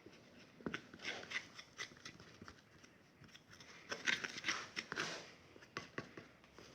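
Hands handling and mixing flour-and-water slime dough, with scattered small clicks and short rustles, busiest about a second in and again near the middle.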